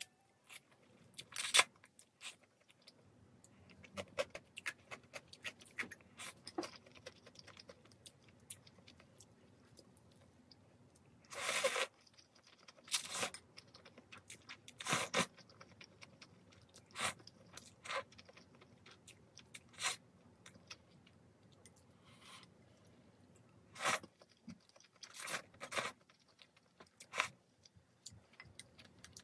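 Close-miked eating of janchi guksu, Korean thin wheat noodles in broth: noodles slurped in short noisy bursts, with chewing and small mouth sounds between. The longest slurp comes about eleven seconds in, with more scattered through.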